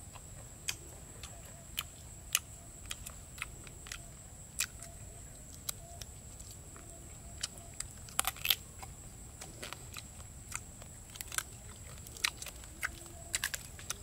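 Close-up eating sounds: a man biting and chewing grilled chicken, heard as irregular sharp crunches and smacks, about one or two a second, with a louder cluster a little past the middle. A steady high thin tone sits underneath.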